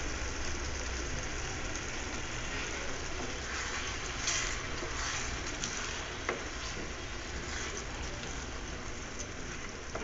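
Vegetables sizzling steadily in a frying pan while a spoon stirs in a dollop of yogurt, with a few brief louder stirring sounds a little before halfway.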